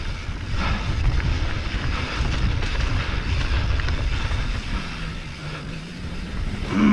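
Wind buffeting the action camera's microphone and mountain bike tyres rolling over a dirt singletrack during a descent, a dense fluttering rumble. A short, louder falling sound comes right at the end.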